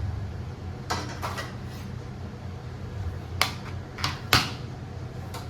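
Kitchen clatter: about seven short, sharp clinks and knocks of dishes and utensils being handled, the loudest three coming between about three and four and a half seconds in, over a steady low hum.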